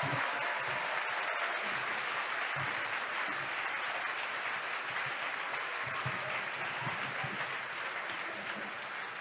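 Crowd applauding and cheering, slowly dying down.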